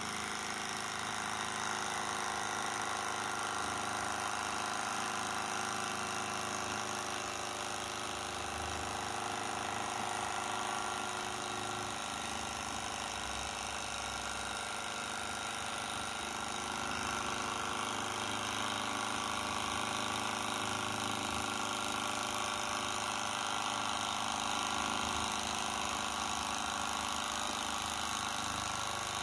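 Bohm HB14 twin-cylinder Stirling model engine running steadily, its many linkages and ball-bearing joints making a fast, busy sewing-machine sound.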